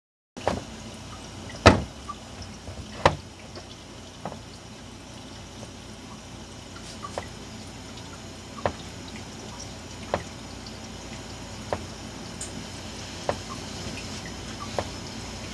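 Sharp single clicks over a steady hiss, about one every second and a half; the first two are the loudest.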